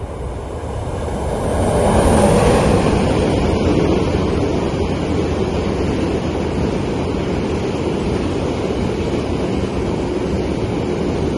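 Freight train of LPG tank wagons passing at speed, hauled by a Mercitalia E494 electric locomotive. The sound swells as the locomotive goes by about two seconds in, loudest then, and carries on as a steady rumble of the tank wagons rolling past on the rails.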